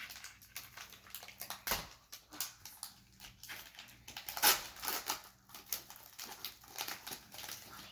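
Foil wrapper of a Pokémon booster pack crinkling and crackling as it is torn open, with a louder crackle about four and a half seconds in.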